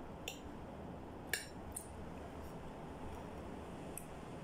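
Metal fork and spoon clinking against a ceramic plate while eating, about four short sharp clinks, the loudest a little over a second in, over a steady low background noise.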